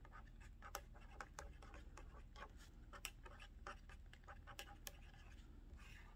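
Felt-tip pen writing on paper: faint, irregular scratching strokes as letters are written.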